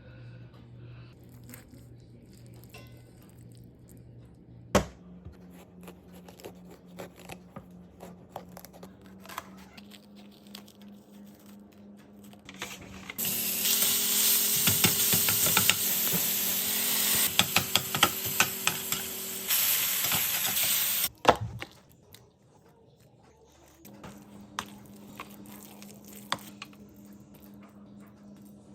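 Kitchen cooking sounds: light taps and clicks of utensils, then food sizzling loudly in a hot pan for about eight seconds, cutting off suddenly. A low steady hum runs underneath.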